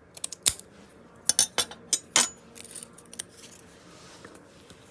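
Scattered clicks and light taps of small craft supplies and tools being picked up and set down on a tabletop, one with a brief metallic ring about two seconds in. The handling dies away for the last couple of seconds.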